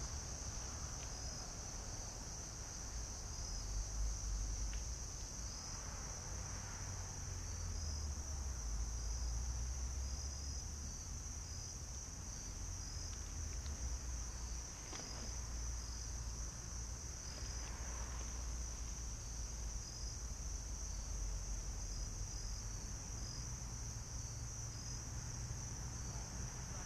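Steady chorus of crickets: a constant high-pitched trill with faint, evenly repeated chirps over it, above a low rumble.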